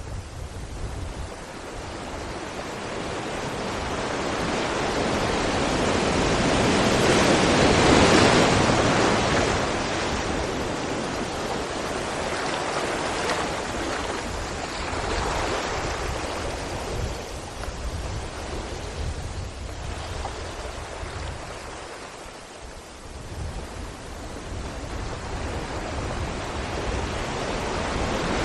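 Sea waves breaking against rocks. A wave builds to a loud crash about eight seconds in, then the surf ebbs and a smaller swell rises again near the end.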